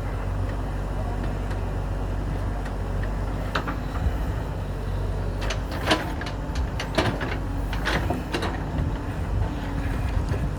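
JCB 3DX backhoe loader's diesel engine running steadily, with several sharp metallic clanks and knocks in the middle as it works.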